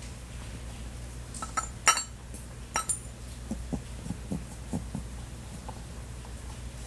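Hard objects clinking and knocking together on a tabletop a few times, as a rabbit nudges the Easter props; the loudest clink comes about two seconds in. A run of soft, low taps follows.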